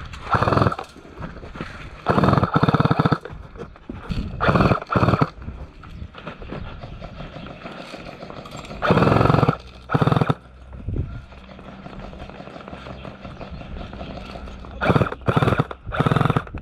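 Suppressed G&G UMP45 electric airsoft gun firing short full-auto bursts, each a rapid buzzing rattle of the gearbox cycling. There are about seven bursts, the longest just over a second, with a quick cluster near the end.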